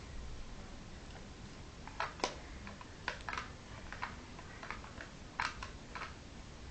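Scattered light clicks and taps of a small plastic toy being handled by a baby. They start about two seconds in and come at irregular intervals.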